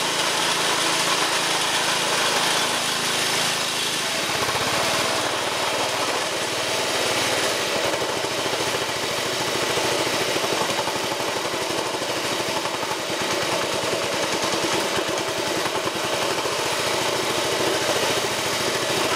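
Small single-cylinder petrol engine running steadily while driving a Ford car air-conditioning compressor used as an air pump; about four seconds in the running changes to a faster, rougher pulse.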